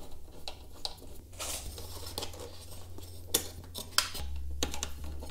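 Allen key and steel bolts clicking and scraping as the bolts are threaded into a motorcycle's rear frame mounts: a scattered string of light metal ticks and clinks over a low steady hum.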